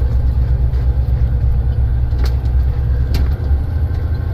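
Loaded dump truck's diesel engine running low and steady, heard from inside the cab as the truck starts down a steep ramp held in low gear. A couple of sharp knocks or rattles sound partway through.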